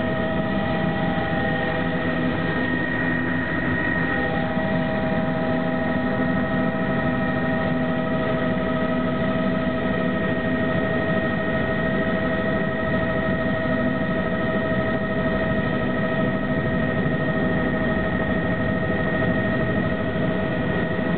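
Helicopter's turbine engine and rotor heard from inside the cabin during lift-off: a steady noise with a constant high whine.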